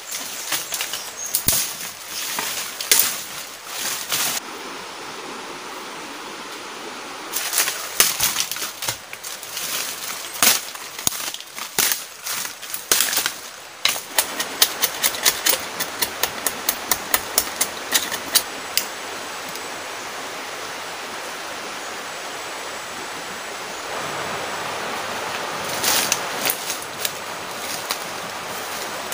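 Irregular knocks and rustles of wooden poles and branches being handled, then a run of quick, evenly spaced scraping strokes of a knife blade, about four a second, over a steady background hiss.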